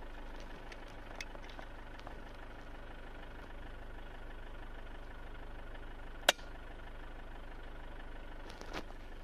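Vehicle engine idling steadily, with a single sharp air-rifle shot about six seconds in, fired at a cavy.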